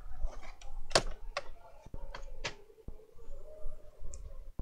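Plastic laptop case being handled and turned over on a workbench: a series of sharp clicks and light knocks as the chassis shifts and is set down.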